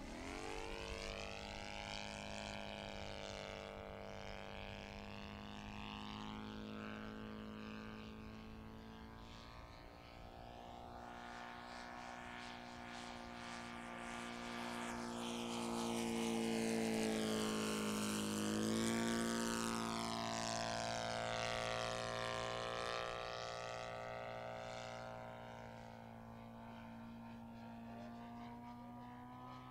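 Saito FG-57TS four-stroke twin-cylinder petrol engine and propeller of a radio-controlled aerobatic biplane in flight, its pitch rising and falling through the manoeuvres with a swirling, phasing quality. It is loudest about two-thirds through as the plane passes low, and the pitch dips as it goes by.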